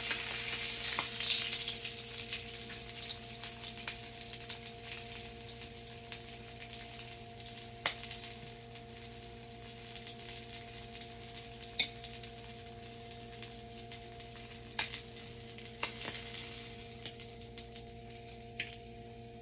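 Oil sizzling and crackling in a frying pan after pan-searing veal sweetbreads, loudest at first and slowly dying down, with a few sharp clicks along the way. A steady low hum runs underneath.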